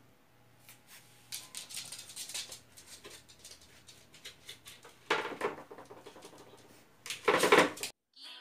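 French bulldog's claws clicking and scratching on loose white-painted wooden boards, with two louder clattering scrapes of the boards, about five seconds in and near the end.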